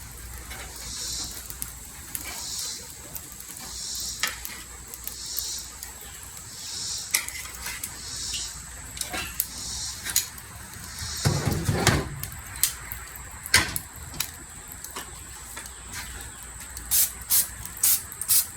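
Raw chicken wings sizzling as they are laid one by one on a hot charcoal kettle-grill grate, a short hiss about every second and a half, with light clicks of tongs on the grate and one heavier knock about two-thirds of the way through. Near the end comes a run of short, sharp hisses: cooking spray being sprayed over the wings to crisp the skin.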